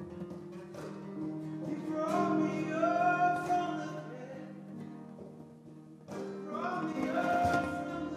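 Live church worship band playing, with acoustic guitars strumming over bass and keyboard. A woman sings lead into a microphone in two phrases, the first about two seconds in and the second about six seconds in.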